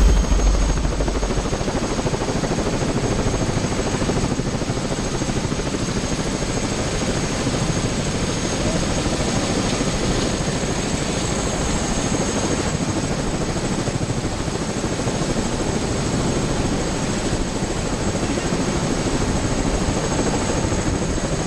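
Single-engine turbine helicopter running on the ground with its rotor turning: a steady high turbine whine over dense, even rotor and engine noise.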